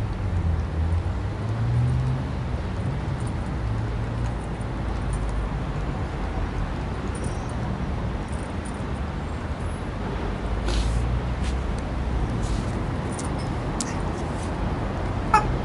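Steady low rumble of city traffic, with a few faint clicks in the second half. Near the end a rubber chicken toy starts squawking in a quick run of short squeaks.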